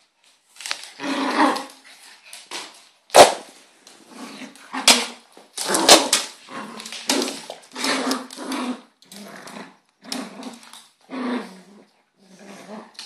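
Two dogs growling and barking in short, repeated bursts as they wrestle in play, with a few sharper, louder outbursts about three and five to six seconds in.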